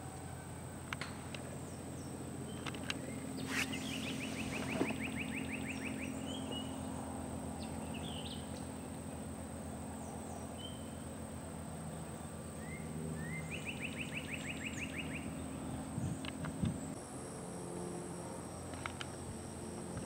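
Outdoor summer ambience: birds calling with short chirps and, twice, a fast even trill, over a steady high insect drone and a low steady hum.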